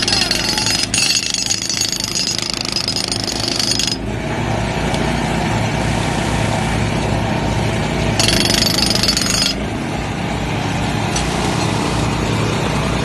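Handheld hydraulic breaker hammering into asphalt pavement, a rapid continuous pounding over a steady low drone. The hammering is harshest and brightest through the first few seconds and again for a second or so about eight seconds in.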